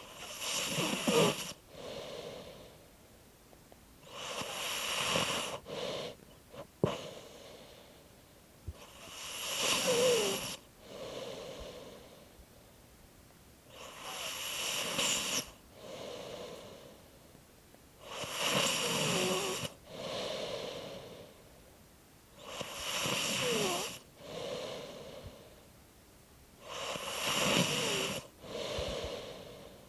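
Steady snoring, about one breath every four to five seconds. Each breath is a noisy draw followed by a softer exhale, with a quiet squeak that slides down in pitch. A single short click about seven seconds in.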